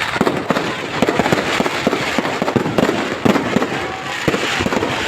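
Fireworks display: a continuous rapid barrage of sharp bangs and crackles.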